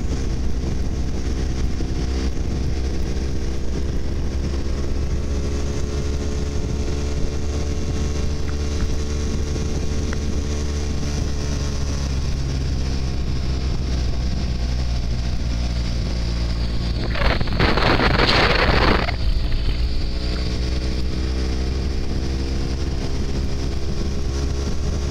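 BMW F800R's parallel-twin engine running under way, with wind rush, easing off slightly about ten seconds in and picking up revs again near the end. A brief loud rush of noise comes about 17 seconds in.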